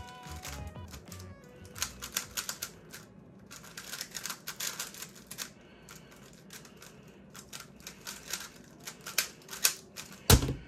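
X-Man Tornado V2 3x3 speed cube turned rapidly through a solve: fast, irregular clicking and clacking of its plastic pieces, with one louder click near the end. Faint music fades out in the first second or so.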